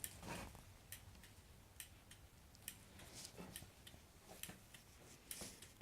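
Heavy-duty two-wire turn-signal flasher relay clicking faintly and evenly, about once a second: a normal flash rate, the sign that the LED hyper flashing is cured.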